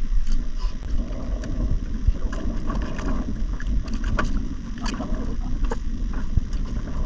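Steady low rumble of wind and water around a small outrigger boat at sea, with scattered light clicks and taps as a caught grouper and its lure are handled.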